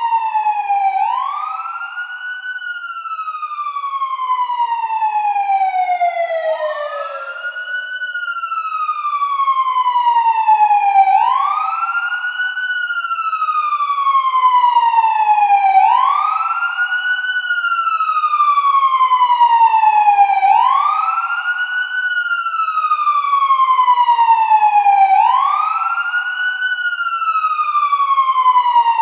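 Police siren in wail mode: each cycle rises quickly in pitch, then falls slowly, about every five seconds. A fainter second wail overlaps out of step.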